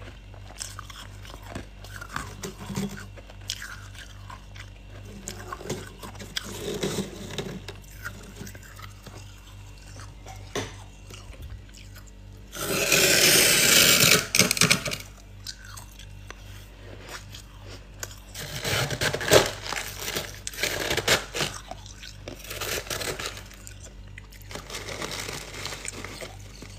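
Thick freezer frost being scraped and crunched with a plastic scoop. There are scattered crunches, then a loud, steady scrape lasting about two seconds around the middle, then a run of sharp crunching bursts.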